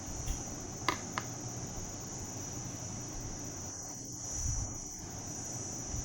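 Steady high-pitched chirring of crickets in the background, with two faint clicks about a second in.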